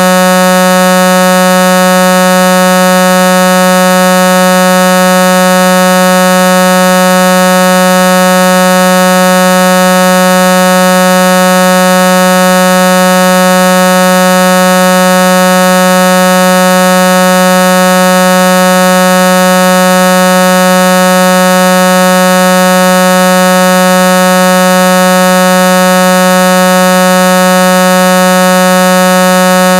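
A loud, steady horn tone held without a break, buzzy and unchanging in pitch, sounding like a bus horn.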